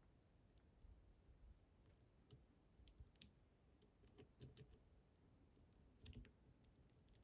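Faint, irregular light clicks of a lock pick probing the tumblers of a Fichet F3D high-security cylinder, checking each for binding during picking.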